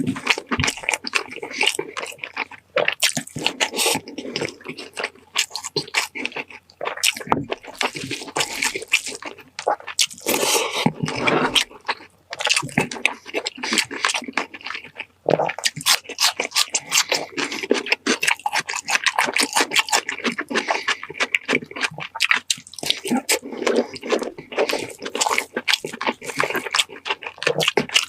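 Close-up eating sounds: wet chewing, lip-smacking and slurping, a quick irregular run of small clicks and snaps.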